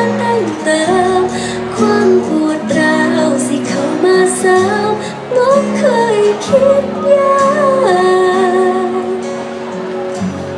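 A song with a woman's voice singing a gliding melody over steady instrumental accompaniment.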